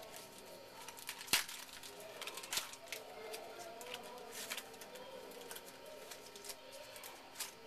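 Baseball trading cards being handled and flipped through: a few light slaps and flicks of card stock, the sharpest about a second and a half in.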